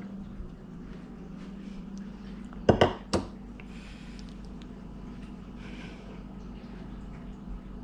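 Kitchenware clattering: three quick sharp knocks of dishes or utensils about three seconds in, over a steady low hum.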